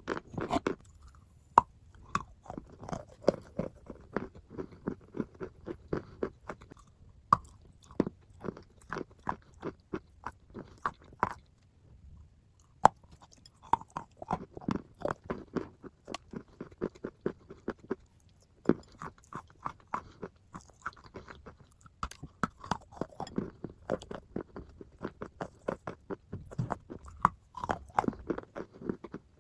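Close-miked biting and chewing of a chunk of chalk: dense runs of crisp crunches, broken by short pauses about twelve and eighteen seconds in.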